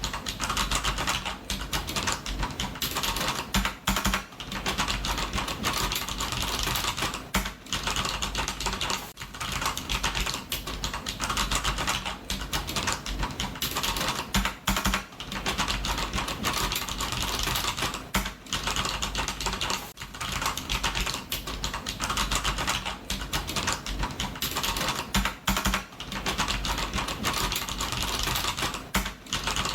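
Fast, continuous typing on a computer keyboard, dense key clicks with brief pauses every few seconds.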